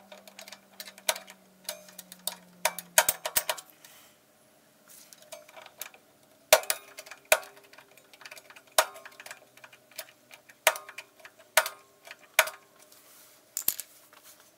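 Screwdriver turning the star-wheel adjuster of a rear drum brake, giving sharp metal clicks at irregular intervals, with a quick run of clicks about three seconds in. The adjuster is spreading the brake shoes outward to take up too much slack, the cause of the brake noise.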